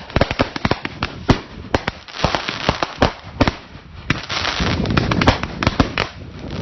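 Fireworks finale: a dense, irregular barrage of sharp bangs from bursting shells, with stretches of continuous crackling between them.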